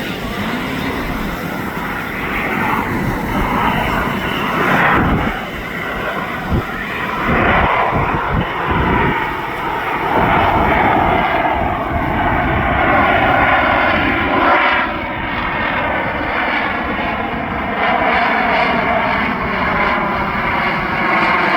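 Boeing F/A-18F Super Hornet's twin General Electric F414 jet engines running loud during a flying display pass. Its tone sweeps slowly downward as it goes by.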